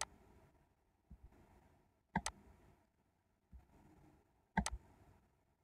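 Computer mouse clicking: a single click at the start, then two quick pairs of clicks about two seconds apart, with faint desk thumps in between.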